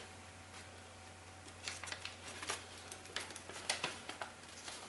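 Faint rustling and crackling of kami paper being handled and folded: scattered small ticks starting about a second and a half in, over a low steady hum.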